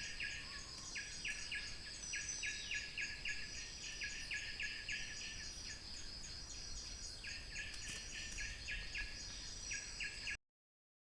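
Forest insect chorus: a steady high buzzing with regular ticking, over a repeated call of short strokes a few per second, cutting off suddenly near the end.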